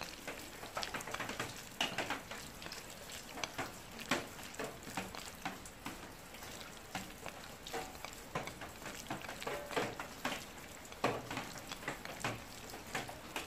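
Hands squishing and kneading raw, seasoned chicken strips on a plate: irregular wet squelches and small clicks over a steady hiss of a tap running into a steel sink.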